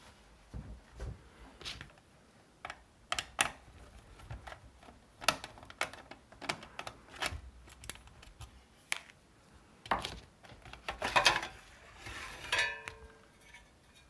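Metal clicks, taps and clinks of a PC power supply unit's casing and parts being handled as it is taken apart, irregular and scattered, with a brief metallic ring about twelve seconds in.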